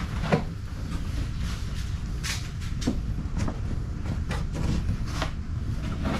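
Scattered light knocks and clicks, about half a dozen, of the plastic jet sled and its new wear bars being handled, over a steady low rumble.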